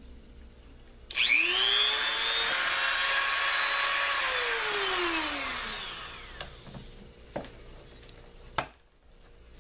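Dremel rotary tool with a cutting disc switched on about a second in, spinning up to a high whine, running steadily for about two seconds, then switched off and winding down with falling pitch. A couple of sharp knocks follow near the end.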